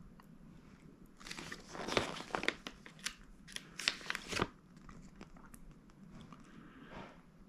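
Packaging being handled during an unboxing: a few seconds of crinkling and crackling of plastic wrapping with sharp clicks, then fainter rustles and clicks.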